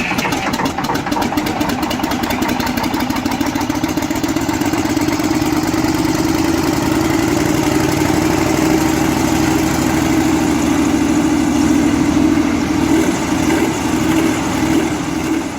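Large diesel engine running at a steady speed with an even, loud drone.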